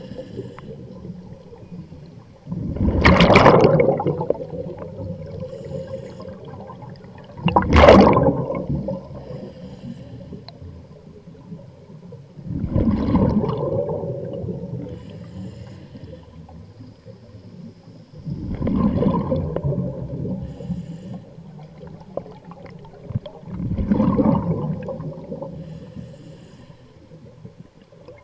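A scuba diver's breathing heard underwater: exhaled bubbles rush out of the regulator five times, about every five seconds, each burst rising quickly and fading, with a quieter hiss between breaths.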